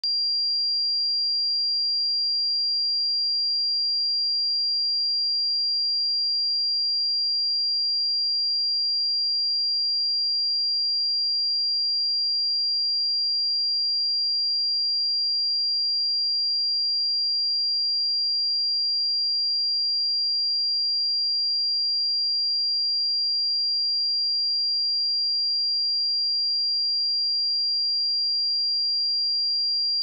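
A pure 4762 Hz sine-wave test tone, held at one pitch and one level throughout: a steady, high-pitched whistle.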